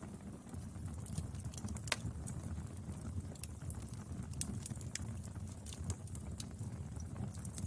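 Wood fire burning, a steady low rumble with irregular sharp crackles and pops, one louder pop about two seconds in.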